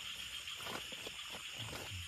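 A steady, high, even chirring of night insects, with scattered light taps and knocks of handling underneath.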